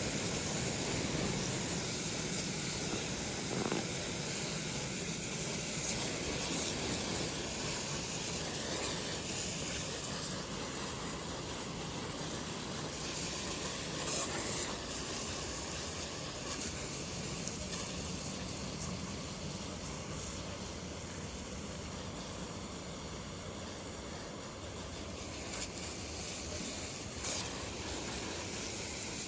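WoodMizer LX55 portable band sawmill running steadily, its blade cutting through a poplar log.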